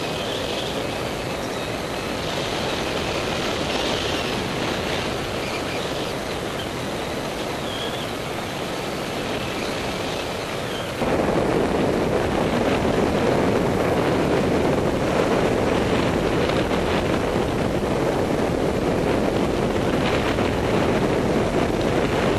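Wind rushing over the camera microphone of a paraglider in flight, a steady rush that steps up suddenly and gets louder about halfway through.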